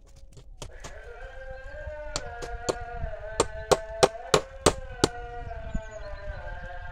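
About a dozen sharp hammer blows, several in a quick run in the middle, during fence repair work. Behind them a long, slowly wavering pitched tone is held throughout.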